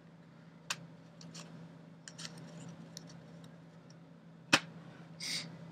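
Baseball trading cards being handled and squared into a stack: a few light clicks and taps, one sharper tap about four and a half seconds in, and a short rustle of card sliding against card just after it, over a faint steady hum.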